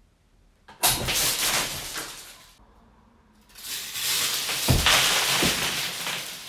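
Bundles of dry spaghetti cracking and snapping under a pulled rope, in two long crackling spells: the first starts suddenly about a second in and dies away, the second builds from about three and a half seconds with a couple of heavier thumps.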